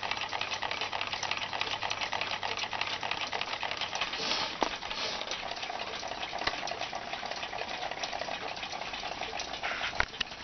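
Remington rolling-number alarm clock's alarm going off as a steady, fast rattle, with a sharp click near the end.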